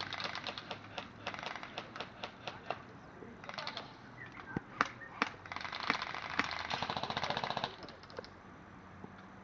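Airsoft guns firing: quick runs of sharp clicking shots, then one long rapid-fire burst of about two and a half seconds from roughly five seconds in.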